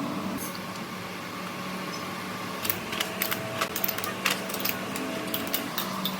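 Steady machine hum, joined about two and a half seconds in by irregular sharp clicks and taps.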